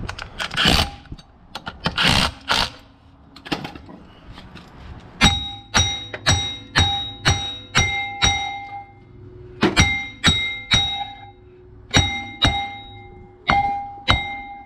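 A cordless impact driver runs briefly twice. Then a hammer strikes the back of a steel brake drum, bolted backwards onto the rear axle flange, over and over at about two blows a second in runs with short pauses, each blow leaving the drum ringing. The hammering is to knock the rear axle shaft out of the housing.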